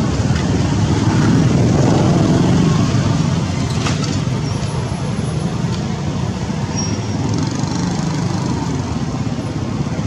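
Steady road traffic noise, growing louder about one to three seconds in as a vehicle passes, with a few faint clicks.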